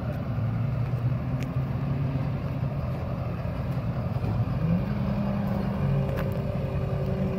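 Car engine running as the car drives around a lot, revving up to a higher steady pitch about four and a half seconds in.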